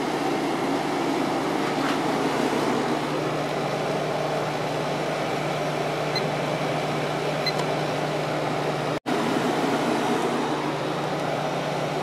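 Fedders 7500 BTU window air conditioner running with its compressor on and its fan on low speed: a steady hum with the rush of air. The sound cuts out for an instant about nine seconds in.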